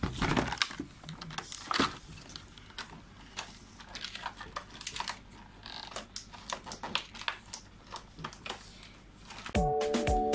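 Cardboard and plastic toy packaging being handled and pried open: scattered clicks, taps and crinkles. Music starts near the end.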